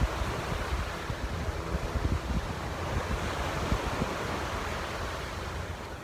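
Small sea waves breaking and washing up on a sandy shore, a steady rush of surf, with wind buffeting the phone's microphone in low rumbling gusts.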